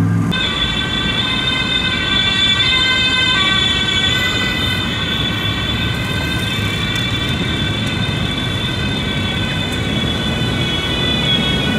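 Emergency vehicle siren: several held tones sound together steadily over a low traffic rumble, shifting slightly a few seconds in.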